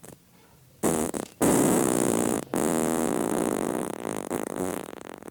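Wet fart sound effects: a short one about a second in, then a long, rapidly fluttering one of about four seconds that breaks off briefly near its start and fades near the end.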